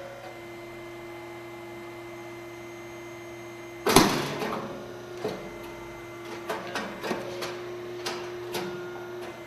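Rice cake popping machine (SYP8501, 85 mm round mold) humming steadily, then about four seconds in a loud pop as the heated mold opens and the rice cake puffs out, the noise dying away over half a second. A series of sharp clicks follows as the press mechanism cycles.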